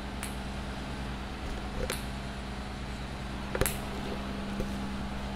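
A steady low mechanical hum, with three sharp clicks spread through it about a second and a half apart.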